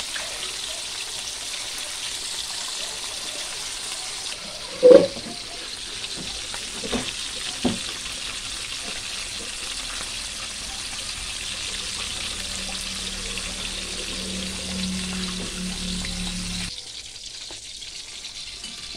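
Small whole fish frying in hot oil in a wok, a steady sizzling hiss. A single sharp knock about five seconds in and two lighter clicks soon after; the sizzle drops away abruptly near the end.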